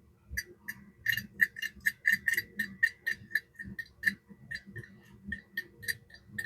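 Quick run of light metallic clicks, several a second, from small hardware on a 1940 Vibroplex Blue Racer telegraph key being fitted and a screw or nut being turned down by hand. The clicks thin out after about four seconds.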